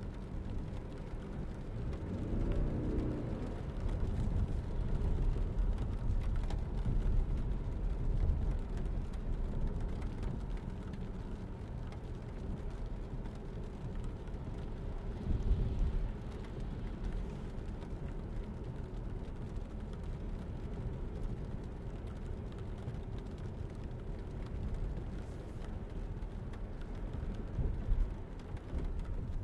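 Steady low road and tyre rumble heard inside the cabin of a 2022 Lexus ES300h hybrid driving on wet pavement. It swells briefly twice, about halfway through and near the end.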